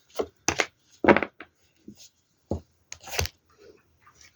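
Tarot cards being drawn and laid down: a handful of short, sharp papery snaps and flicks, spaced unevenly over a few seconds.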